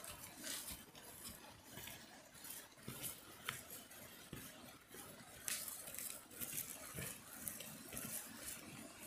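A wooden stick digging into loose forest soil, a faint, irregular run of scrapes and soft thuds as earth and dry leaves are scratched loose and flicked aside.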